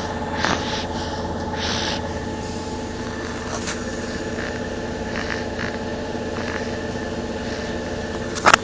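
Steady mechanical drone of a moving vehicle's interior. A few faint, short, breathy noises come in the first two seconds, from a person snoring, and there is a sharp click near the end.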